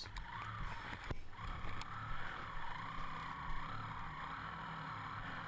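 Dual-sport motorcycle engine running as the bike rides along a trail, its pitch wavering slightly with the throttle, with a brief dropout about a second in.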